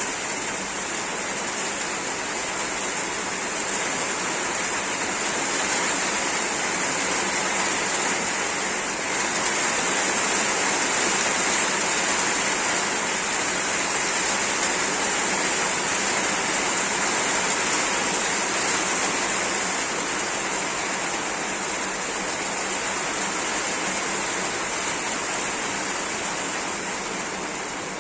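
Heavy rain falling steadily: a dense, even hiss of water with no breaks.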